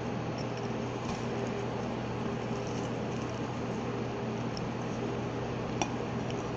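Quiet eating sounds: chewing a mouthful of lasagna while a plastic fork cuts into more on the plate, over a steady low hum. There is one short sharp click of the fork on the plate about six seconds in.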